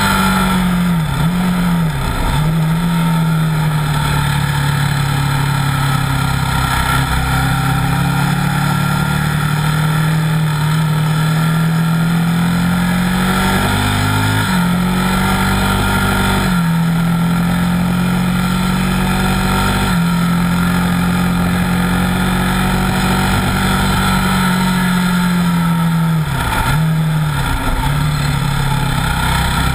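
Buell 1125R's 1125 cc V-twin running hard at track speed, with wind rush. The engine note rises and falls with the throttle. It steps down suddenly a few times in the middle and dips quickly twice near the start and twice near the end.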